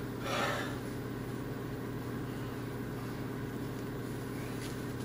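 Steady low mechanical hum of the room, with a short rustle right at the start.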